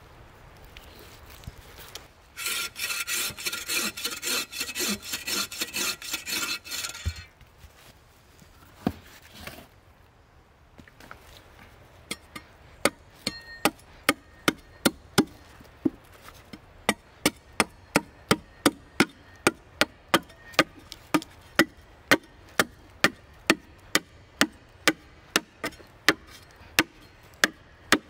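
Shovel blade chopping a birch blank, sharp wooden chops about twice a second through the second half. Earlier, about two seconds in, a few seconds of fast rasping strokes on wood.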